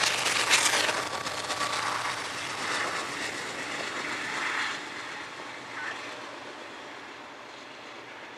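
CSX freight train rolling past, its locomotives moving off. The noise is loudest at first and fades steadily, leaving the rolling of autorack cars on the rails.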